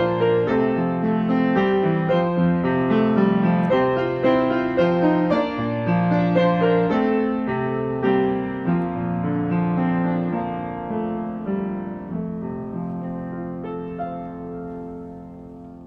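Closing piano music, a slow run of held notes and chords, fading out near the end.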